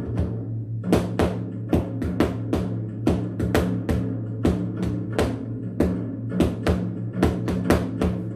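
Drums played with sticks along to a recorded song: sharp stick strikes, about two to three a second, over the song's steady low bass notes. The strikes pause briefly near the start, then run on evenly.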